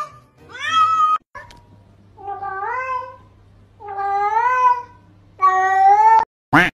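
Cat meowing: three long, drawn-out meows about a second and a half apart, each sliding up in pitch and then held, after a shorter rising call about half a second in.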